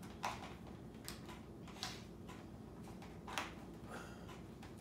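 A few faint, scattered clicks and taps of small hard parts being handled while a toy is being fixed by hand, the sharpest about three and a half seconds in.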